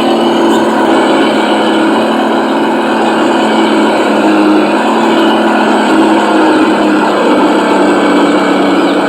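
MN99S Land Rover Defender remote-control car running, a steady mechanical sound that holds one pitch without revving up or down.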